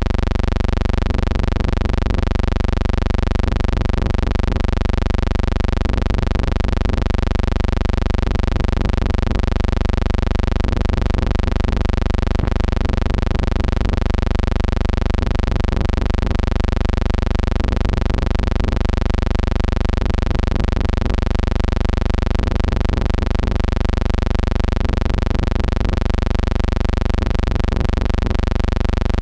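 A steady, unchanging hum with many overtones that runs without a break.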